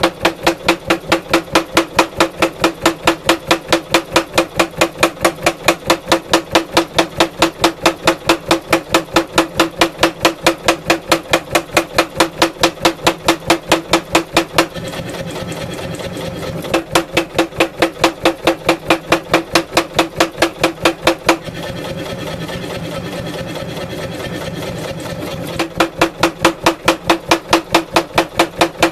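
Power hammer with a 16 kg head forging a wootz steel ingot, striking about three blows a second. The blows come in three runs broken by two pauses of a few seconds, during which only a steady hum remains.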